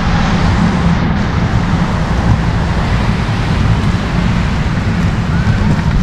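Storm wind buffeting the microphone of a camera on a moving cargo bike: a loud, steady rumble with a hiss over it.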